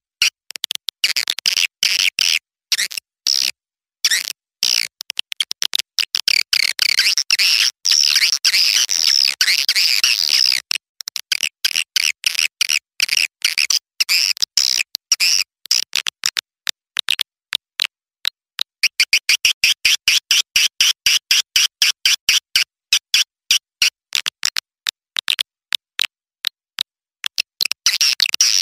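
Young swiftlets' call recording, a swiftlet-house lure sound: rapid high-pitched chirps in quick pulses that run twice into long stretches of dense twittering.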